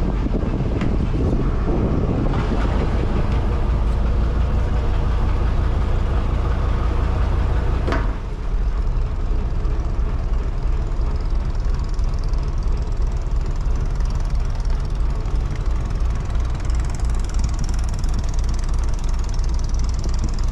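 A wooden river boat's engine running steadily at idle, a deep low drone, with one sharp knock about eight seconds in.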